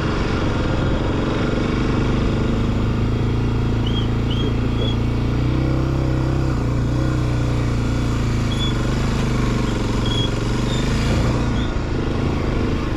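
Off-road motorcycle engine running steadily under load while riding on wet beach sand, with wind noise on the microphone. The engine note rises a little about halfway through and eases off near the end.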